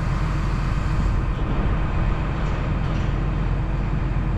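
Tractor engine running steadily while its hydraulics fold out the booms of a 7.5 m Mastek dribble bar on a slurry tanker.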